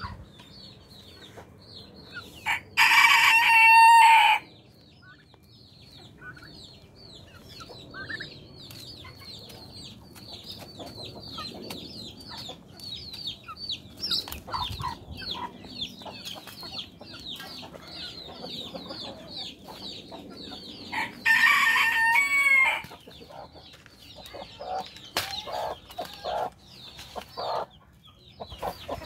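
A rooster crows twice, about three seconds in and again about twenty-one seconds in, over the repeated high peeping of chicks and scattered clucking of hens.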